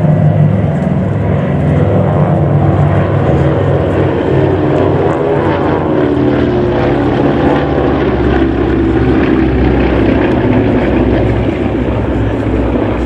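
Piston radial engines of a Douglas C-47/DC-3 and Beech 18s flying by in formation: a loud, steady propeller drone. The low rumble grows stronger about halfway through.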